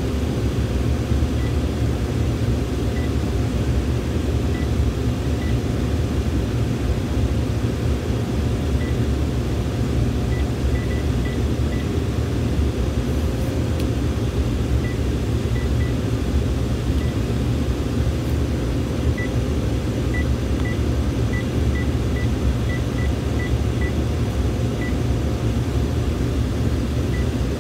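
Short high key-press beeps from a Panasonic KX-TGF570 cordless phone as a phone number is keyed in. The beeps are irregularly spaced, some in quick runs, over a steady low rumble of background noise that is the loudest sound throughout.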